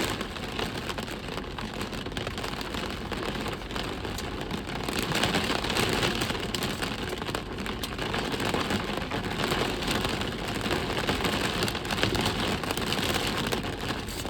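Rain falling hard, with many separate drop hits, growing louder about five seconds in.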